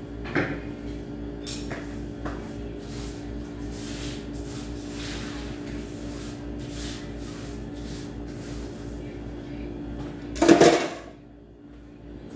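Kitchen handling noises: a few light knocks of dishes and utensils being set down on the counter, then one louder clatter about ten seconds in, over a steady hum.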